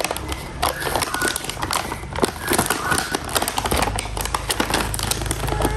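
Small plastic toy pieces and packaging being handled, a dense, irregular run of crinkles and clicks with a few brief squeaks.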